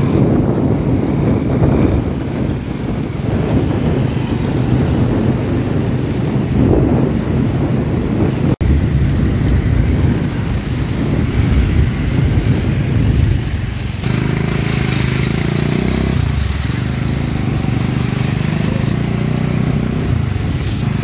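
Riding on a motorcycle: wind rumbling on the microphone over the engine running. A brief break comes about a third of the way in, and the engine note is steadier in the last third.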